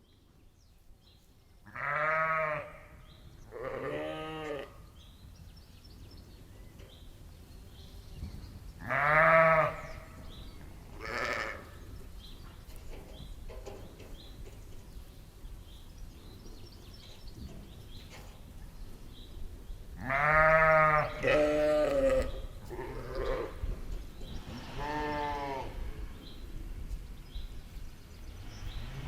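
Sheep and lamb bleating, about eight separate bleats in loose groups, over a steady low background noise.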